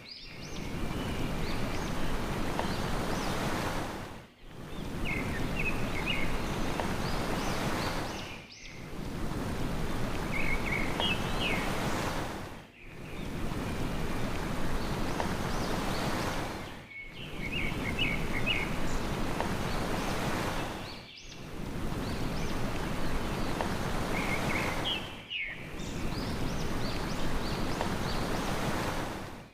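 Steady wash of ocean surf with short runs of quick small-bird chirps. The whole sound dips briefly about every four seconds, each stretch repeating like a short looped recording.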